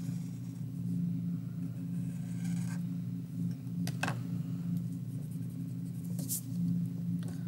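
A steady low hum throughout, under the faint scratch of a felt-tip Sharpie marker drawn over paper in the first few seconds. A sharp tap about four seconds in as the marker is set down on the table, and a short rub across the paper about six seconds in.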